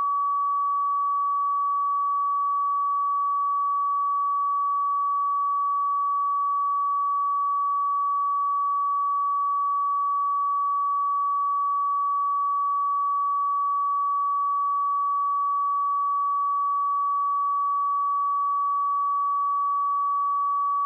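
A steady pure sine-wave test tone at 1138 Hz, one unchanging pitch held without a break.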